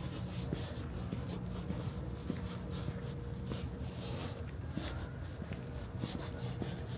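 Footsteps at a walking pace, scratchy short steps over a steady low hum with a faint steady tone.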